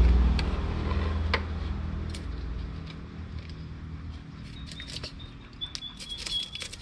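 A knife scraping the scales off a tilapia in short, irregular scratchy strokes. A low engine-like rumble fades away over the first few seconds.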